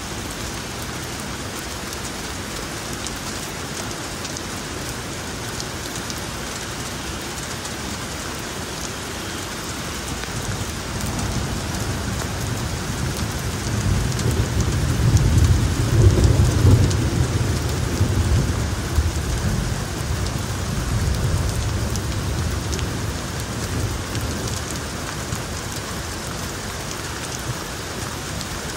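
Steady rain falling on wet street and building surfaces, with a long rumble of thunder that builds about ten seconds in, is loudest around the middle and rolls away over the next several seconds.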